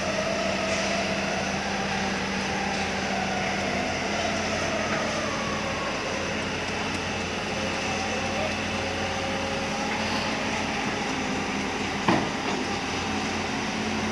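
Crawler excavators' diesel engines running steadily under load, with a hydraulic whine that wavers in pitch as the arm digs. A single sharp knock near the end.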